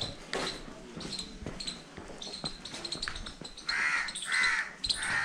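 A crow cawing, a run of short harsh calls about every half second starting about two-thirds of the way in.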